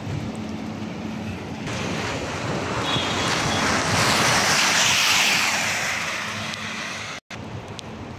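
A vehicle passing on a rain-soaked road, its tyres hissing through the water. The hiss swells over a few seconds, then fades, and cuts out for an instant near the end.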